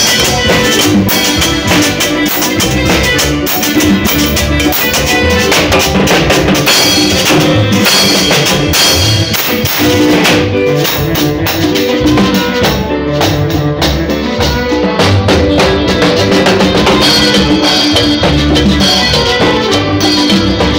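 Live band playing a Catholic hymn, with a drum kit and cymbals keeping a steady beat.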